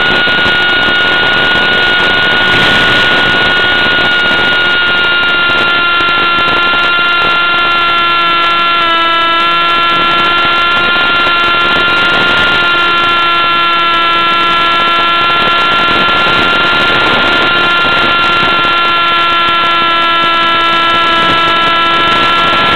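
Brushless electric motor and propeller of a Dynam Hawk Sky RC plane whining steadily under power, with a hiss, its pitch drifting slightly lower, with a brief dip about nine seconds in.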